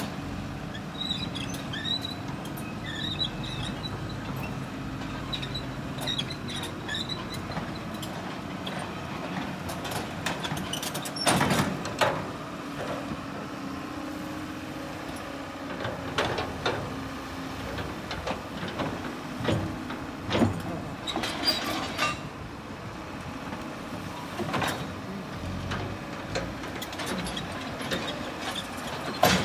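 Diesel engines of a hydraulic excavator and a flatbed truck running steadily, with several loud metallic clanks and squeals, the loudest about eleven seconds in and again around twenty to twenty-two seconds in.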